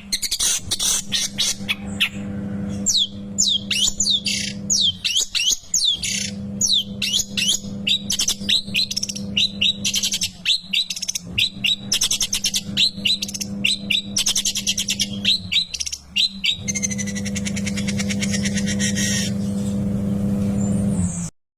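Long-tailed shrike (cendet) calling in rapid series of sharp, falling notes, turning to a harsh buzzy chatter near the end before cutting off. A steady low hum runs underneath.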